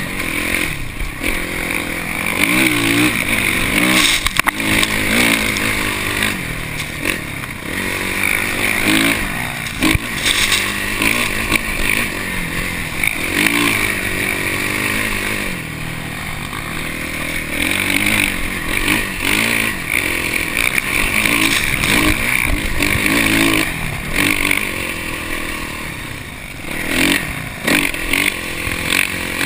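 Dirt bike engine heard close up from on board, revving up and down over and over as the bike is ridden across sand dunes.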